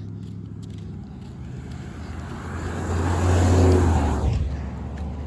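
A road vehicle passing close by: its engine and tyre noise swells, peaks about three and a half seconds in and then fades. No horn sounds. A steady low hum runs underneath.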